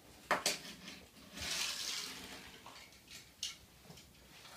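Small die-cast toy cars on a wooden windowsill: two sharp clicks as a car is set down, a short rolling hiss of its wheels along the wood, then another light tick.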